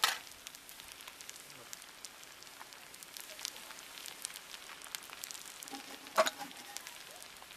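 Rice frying in a steel kadai over a wood fire: faint, steady sizzling and crackling with many scattered small ticks. About six seconds in comes one sharp metal clink of a spoon against the steel spice box.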